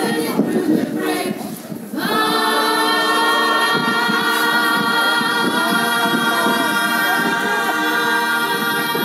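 A choir singing a cappella, many voices holding long, steady notes together; the full chord comes in about two seconds in.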